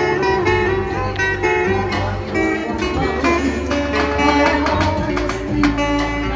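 Background music led by a plucked acoustic guitar, with a steady run of plucked notes.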